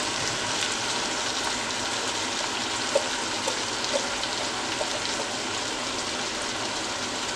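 Steady sizzling hiss from a pot of browned ground chuck on the stove, with a few faint soft knocks about three to four seconds in as canned chili beans are emptied into it.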